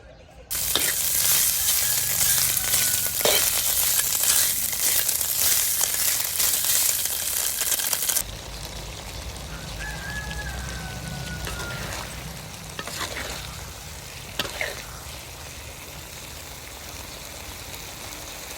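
Food frying in hot oil: a loud sizzle starts suddenly just after the start, then drops to a quieter, steady sizzle about eight seconds in. A few short knocks of a utensil are heard.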